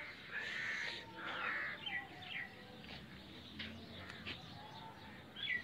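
Faint bird chirps: a few short, quick calls, one near the end, over a low background hiss.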